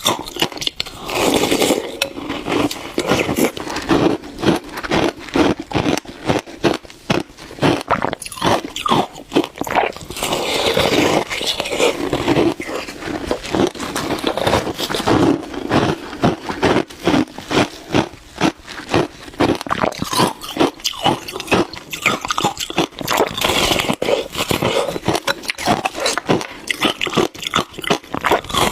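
Shaved ice being bitten and chewed close to the microphone: a steady run of rapid wet crunches.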